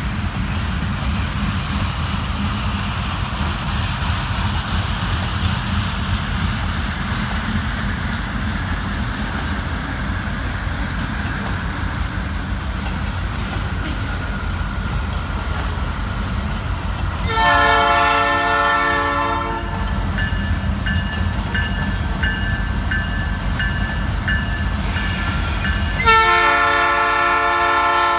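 Approaching Norfolk Southern diesel locomotive, a steady low rumble, sounding its multi-chime air horn in two long blasts: one about two-thirds of the way through and a second, louder one near the end.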